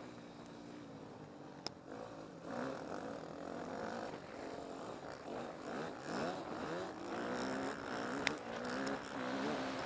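Yamaha motocross bike engine heard on board while riding, revving up and dropping back again and again as it accelerates and shifts along the track. Two short sharp ticks come through, about two seconds in and near the end.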